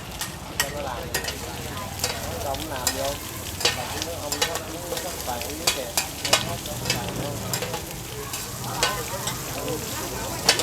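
Bột chiên (rice-flour cake cubes with egg) frying and sizzling in oil in a large pan. A metal spatula clicks and scrapes against the pan at irregular intervals as the vendor turns the cake.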